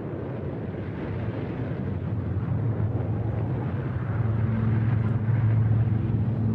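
Rumble of an erupting volcano's ash column as laid on a documentary sound track: a low, even noise that grows steadily louder, with a steady low drone tone joining about four seconds in.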